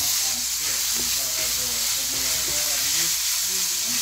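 Crumbled pork sausage sizzling steadily as it fries on a nonstick electric grill plate, with a spatula pushing it around near the end.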